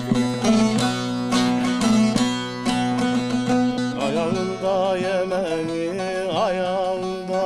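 Bağlama (long-necked Turkish saz) playing an instrumental interlude of a Turkish folk song with quick plucked notes. About four seconds in, the melody turns to long, wavering held notes.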